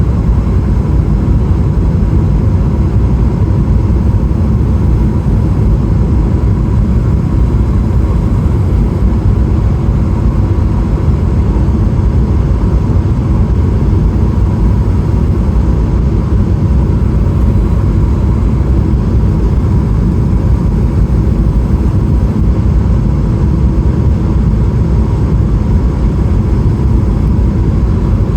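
Boeing 777-300ER cabin noise in flight: a steady, loud rumble of engine and airflow heard from inside the cabin, with a faint steady whine above it.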